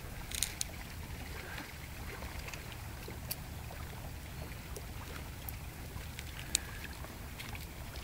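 A steady low outdoor rumble with a few faint, short ticks scattered through it.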